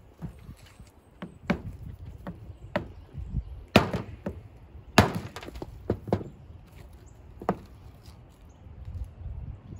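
Hammer stone striking a chunk of quartz, rock on rock, to break shards off it: a dozen or so sharp knocks at an uneven pace, the two loudest about four and five seconds in.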